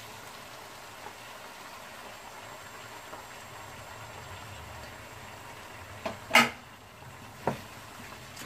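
Low, steady hiss from a pot of cucumber pieces cooking on a gas stove. About six seconds in there is a loud, sharp metal clank, and a lighter knock follows about a second later, as a lid and a spatula meet the steel pot.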